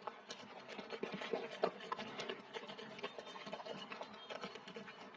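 A dog chewing and crunching food, a quick irregular run of small crunches and clicks.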